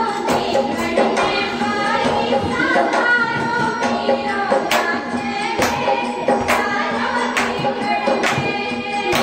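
Music: a Holi song with singing over a beat of sharp percussion strikes, roughly one a second.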